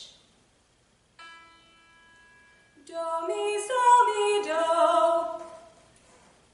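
A single held reference note sounds for about a second and a half, then a young woman sings a short unaccompanied phrase of a few notes starting near that pitch and stepping downward, ending about a second before the close.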